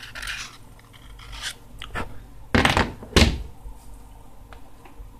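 Short scratchy scrapes of a knife cleaning old adhesive off a smartphone's frame, with two loud knocks about two and a half and three seconds in as the phone is handled.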